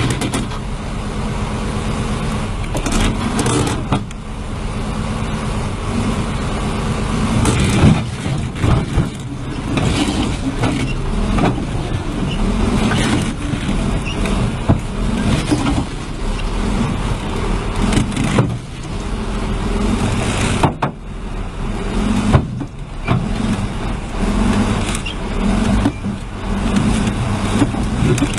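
Motor vehicle or heavy machinery engines running steadily, with scattered knocks and clatter; the sound changes abruptly about three quarters of the way through.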